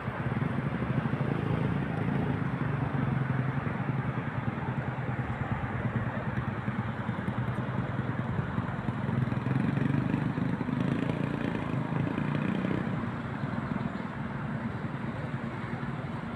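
Steady low rumble of passing road vehicles, swelling louder about a second in and again around ten seconds in.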